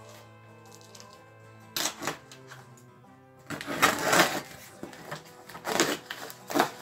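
Packing tape on a cardboard box being slit open with a blade, in short noisy strokes about two, three and a half to four, six and six and a half seconds in, with cardboard handling. Quiet background music runs underneath.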